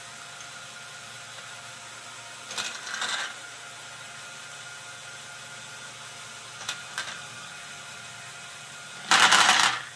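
LEGO Technic scissor lift running steadily, its built-in motor and gears whirring, with brief clatters of plastic balls twice in the middle. Near the end comes a loud rattle of many plastic balls rolling off the raised platform.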